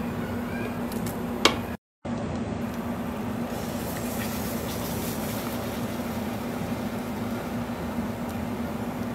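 A steady machine hum with a constant low drone, like a running fan. It is broken by one sharp knock about a second and a half in and a brief drop to silence just before two seconds.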